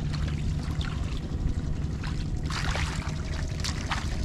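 Feet squelching and splashing through mud and shallow water in a flooded rice paddy, several steps, the loudest a little past halfway. Wind rumbles on the microphone throughout.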